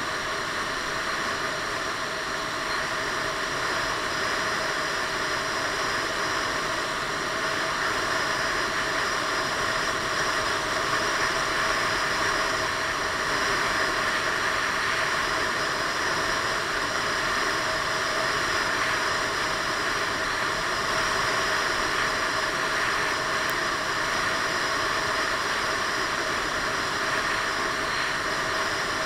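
Piaggio Beverly 500 maxi-scooter cruising at a steady road speed, heard from a helmet-mounted camera. A steady rush of wind and road noise, with the even drone of its single-cylinder engine underneath.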